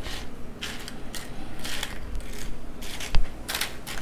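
Corn tortilla chips rustling and crackling in irregular bursts as a hand pushes them around on a metal pizza pan, with one sharp click about three seconds in.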